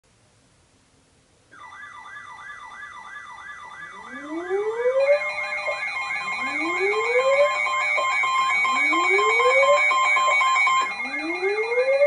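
Several weather alert radios sounding their alarms together for a NOAA Weather Radio flood warning. A warbling siren starts about a second and a half in, a rising whoop repeats about every two seconds from about four seconds in, and steady alarm tones join about a second later, most of them stopping near the end.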